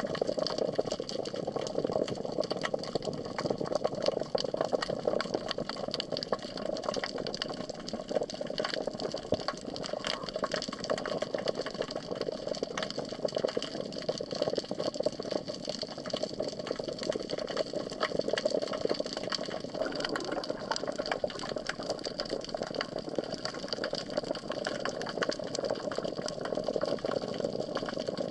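Underwater ambience picked up by a camera submerged in the sea: a steady muffled hum of water with continual fine crackling clicks.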